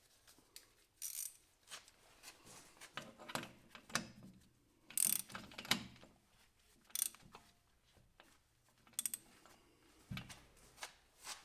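Metal hand tools clicking and clacking in irregular bursts as a wrench works on a 24 mm hydraulic fitting.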